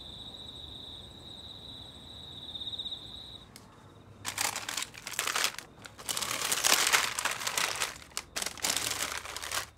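Plastic bags of frozen dumplings crinkling and rustling in several bursts as hands pull them from a freezer shelf, starting about four seconds in. Before that, a steady high-pitched tone sounds and stops.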